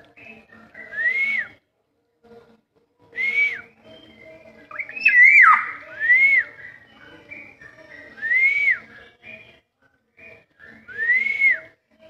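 Black-naped oriole (kepodang) calling: loud, fluty whistles, each note rising and then falling, given five times about every two to three seconds, with a more tangled, wavering call about five seconds in.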